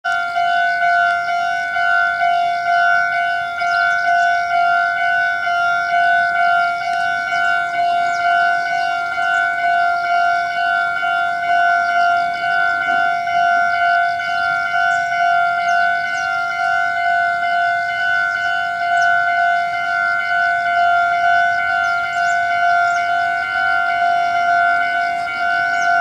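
Railway level-crossing warning bell ringing: a loud, evenly repeating electronic ding that sounds the alarm for an approaching train while the crossing is closed.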